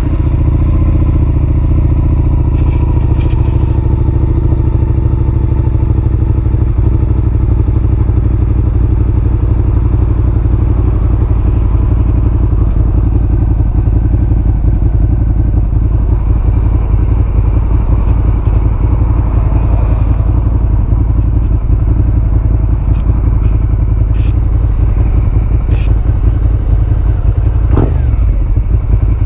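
Suzuki SV650A's 645 cc V-twin engine idling steadily through its exhaust, just after being started.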